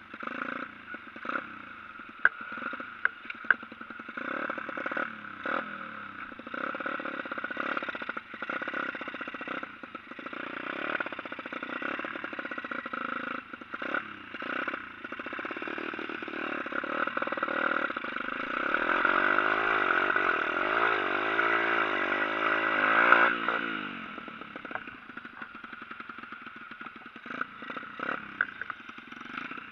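125 cc pit bike engine running under throttle while riding through snow and slush, revs rising and falling, with scattered clattering knocks from the bike over bumps. About 18 s in it revs harder, the pitch wavering up and down, then drops off sharply a little after 23 s.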